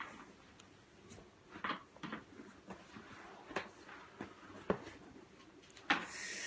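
Phone being handled close to its microphone: scattered soft knocks and clicks, and a short rustle near the end.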